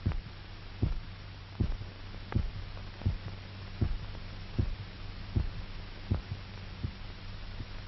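A regular beat, one short sharp stroke about every three-quarters of a second, over a steady low hum, as a heartbeat goes.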